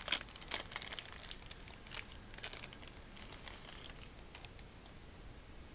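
Thin plastic wrapping crinkling as it is pulled off a small action camera: a run of sharp crackles, busiest in the first second and again a couple of seconds in, thinning to a few light rustles after about three and a half seconds.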